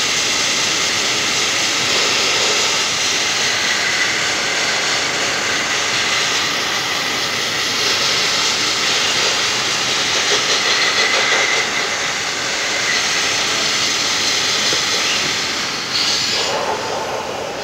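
Compressed-air blasting nozzle firing a fine wood-based abrasive, a loud, steady rushing hiss with a faint whistle in it; the tone of the hiss shifts shortly before the end.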